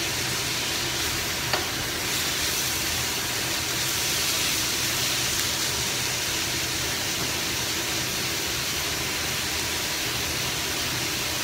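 French beans, minced meat and carrot sizzling steadily in a hot frying pan as a wooden spatula stirs and tosses them, with oyster sauce just added. One faint click about a second and a half in.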